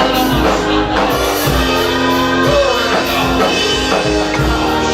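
Live gospel praise band playing, with keyboard chords, bass and drum kit under congregational singing.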